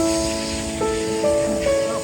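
Background music: soft held notes changing every second or so, over a steady hiss.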